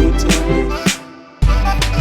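Background music with a steady beat and heavy bass. It drops out a little after the midpoint and comes back about half a second later.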